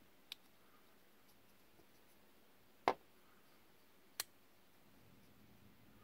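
Stedemon Han linerlock flipper folding knife being worked by hand: three sharp clicks, the loudest a little under halfway through, as the blade is flipped open and snapped shut.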